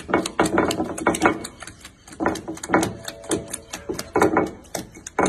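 Puppy lapping water from a bowl: quick wet slurping laps, about four a second, in runs with two short pauses.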